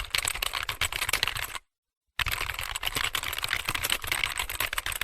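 Fast, continuous typing on a computer keyboard: dense key clicks with no break in rhythm, cut off by a half-second of total silence about a second and a half in, then resuming.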